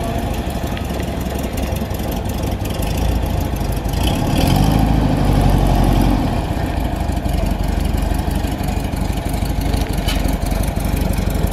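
Volkswagen Kombi's rear engine running as the van reverses slowly, rising briefly in revs about four seconds in and then settling back to a steady low running note.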